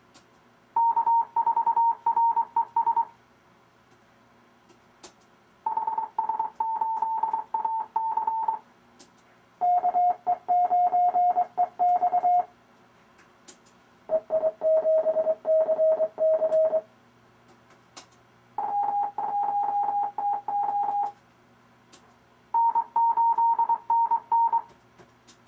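Morse code (CW) tones from the RufzXP practice program, sending six amateur radio callsigns one after another, each a short run of keyed beeps lasting two to three seconds and each at a different pitch. Faint clicks fall in the pauses between callsigns.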